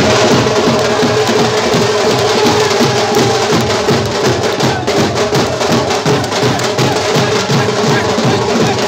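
Loud music with a fast, steady drum beat and a held tone running under it.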